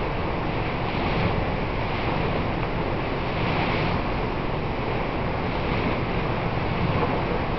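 Steady wind buffeting the microphone over the rush of open sea water, with gentle swells in level and no distinct engine tone.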